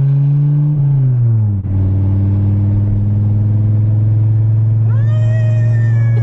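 1994 Dodge Viper RT/10's V10 engine running steadily, its revs easing down about a second and a half in and settling to a steady idle. A higher, wavering tone joins near the end.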